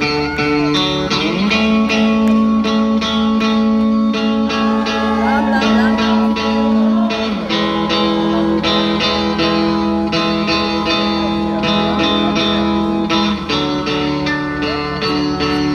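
Live band playing through a concert PA, heard from the crowd: a guitar picks a steady repeated pattern over held chords that shift about every six seconds.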